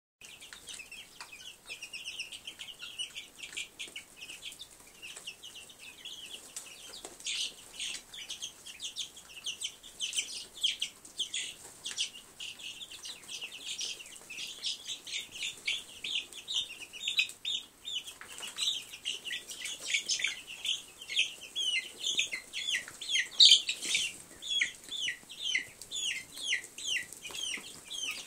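A crowd of young chicks and ducklings peeping nonstop: many short, high, falling peeps overlapping one another, getting busier and louder in the second half.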